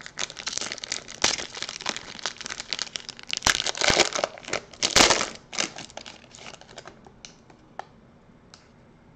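Foil wrapper of a trading-card pack being crinkled and torn open, loudest about three and a half to five seconds in, then dying away to a few light clicks near the end.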